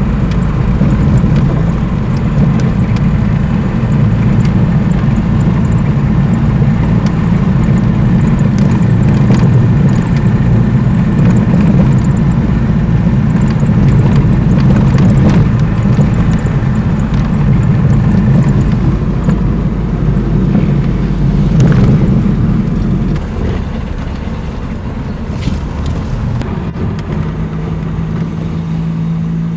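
1951 Lanchester LD10's four-cylinder engine running, with road noise, heard from inside the car on the move. The sound eases about 23 seconds in and settles to a quieter, steadier engine hum near the end.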